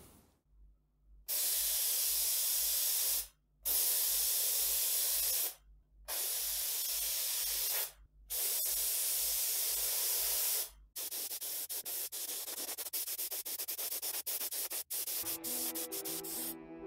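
Small gravity-feed spray gun hissing as it sprays epoxy primer, in four separate passes of about two seconds each. Then comes a longer stretch of spraying broken by many short gaps.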